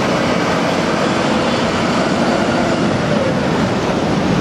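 Steady rush of water spraying onto a muddy toy double-decker bus as the mud is washed off.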